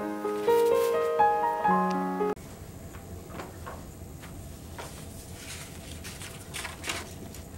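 Piano music with a melody of stepping notes, cut off abruptly about two seconds in. Then a quiet room with faint rustles and soft crinkles of paper as sheets are shuffled and folded on a desk.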